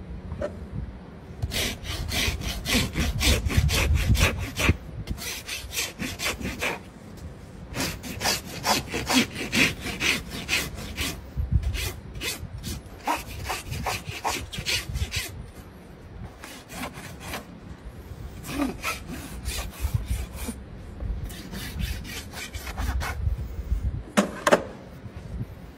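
Farrier's rasp filing a horse's hoof, in quick back-and-forth scraping strokes that come in several runs with short pauses between them.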